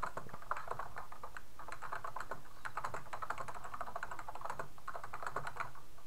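Typing on a computer keyboard: rapid runs of key clicks with brief pauses between them.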